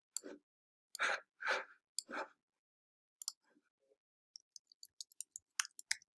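A few short breaths into a close microphone in the first two seconds. Then, from about four seconds in, a quick run of light computer-keyboard key clicks as a word is typed.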